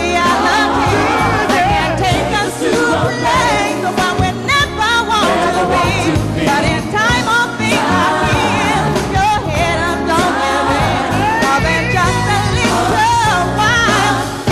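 Live gospel music: voices singing, with a steady bass and drum backing.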